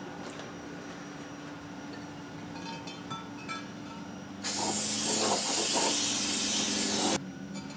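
Aerosol can of brake cleaner spraying onto a removed brake drum in one steady hiss of about three seconds, starting a little past the middle and cutting off sharply.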